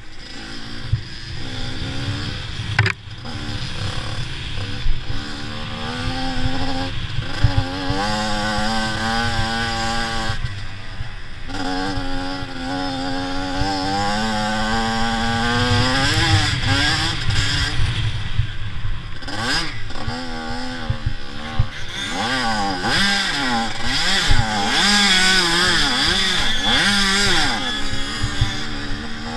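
85cc-class motocross bike engine at race pace, its pitch climbing and falling again and again with throttle and gear changes. It drops off briefly a few times and swings up and down quickly near the end.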